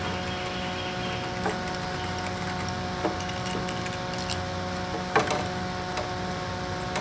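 Hand spline roller pressing screen mesh and rubber spline into the groove of a window screen frame: a few faint squeaks and ticks, the strongest a little after five seconds in, over a steady background hum.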